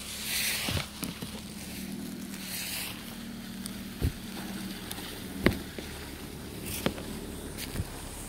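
A snow brush sweeping deep, loose snow off a roof in hissing swishes, with a few sharp knocks of the brush against the surface, the loudest about halfway through. A steady low hum runs underneath.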